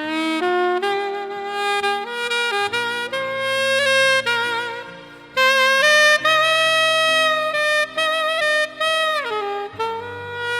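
Saxophone playing a slow melody of held notes over lower accompaniment. About nine seconds in, a note slides down into a lower one.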